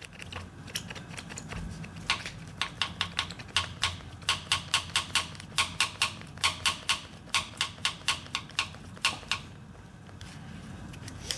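Quick metallic clicking, about three or four clicks a second, as a stuck hydraulic lifter in a Ford FE 390 block is worked up and down in its bore with a pulling tool; the lifters are gummed up with buildup from sitting for decades. A faint low hum runs underneath.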